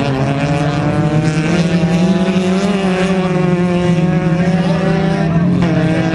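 Several autocross race cars' engines running hard at high revs on a dirt track, their pitches rising and falling as they race.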